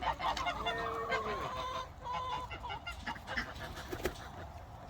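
Chickens clucking, with the calls busiest in the first two seconds and then fainter and sparser.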